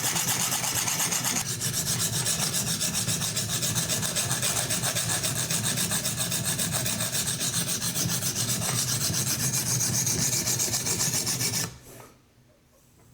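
Coarse 100-grit TSProf Alpha sharpening stone rasping against a steel knife edge in rapid, regular back-and-forth strokes on a guided sharpening system. The strokes stop abruptly near the end.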